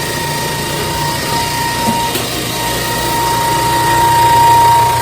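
A 240-volt oil-lubricated air compressor running steadily just after being switched on, its pump building pressure in the tank, with a constant whine over a low hum.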